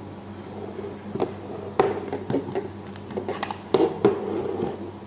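Plastic clicks and knocks of a network cable tester and a crimped RJ45 plug being handled and plugged in. There are about half a dozen sharp clicks, the loudest a little under 2 seconds in and a pair near 4 seconds.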